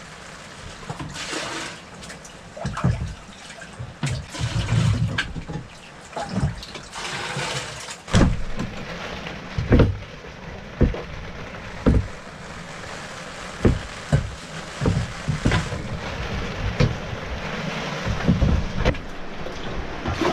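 Floodwater being bailed by hand: a pot and jug scooping and pouring water into plastic buckets, with splashing and repeated knocks of the containers against each other.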